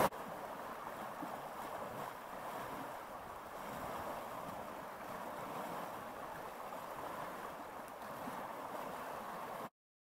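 Fast-flowing river in spate, rushing water making a steady, even noise that cuts off abruptly near the end.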